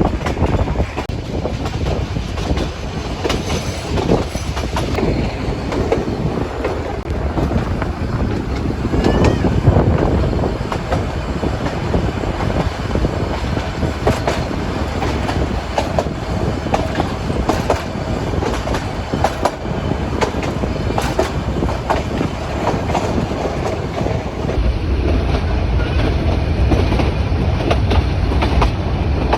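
Nilgiri Mountain Railway toy train running along the track, heard from aboard: a steady rumble with irregular clicks and clatter of the wheels over the rails. The low rumble grows heavier near the end.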